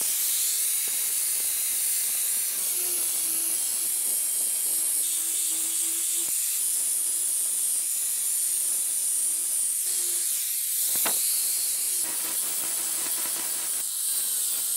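Angle grinder's abrasive disc grinding the steel blade of a butcher's cleaver: a steady, loud high hiss of disc on metal over the motor's faint hum, which wavers in pitch as the disc is pressed into the work.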